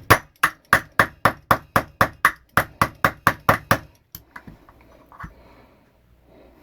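A small hammer tapping a pin back into a Smith & Wesson 6904 pistol's frame: quick, even taps, about three and a half a second, that stop about four seconds in. Faint handling clicks follow.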